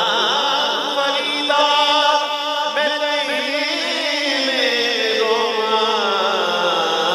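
A man singing a naat, an Urdu/Punjabi devotional song, into a microphone, amplified through a PA, with long held, wavering notes. Over the last few seconds one note slides slowly lower.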